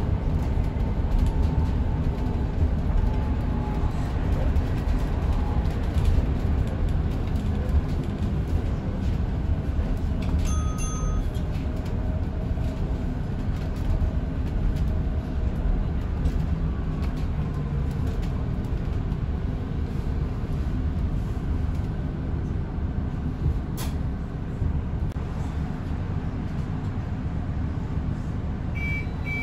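Inside a moving Alexander Dennis Enviro400EV battery-electric double-decker bus: a steady road and tyre rumble, with a faint electric motor whine that drifts in pitch as the bus changes speed. A short electronic beep sounds about a third of the way in, and a single sharp click comes later.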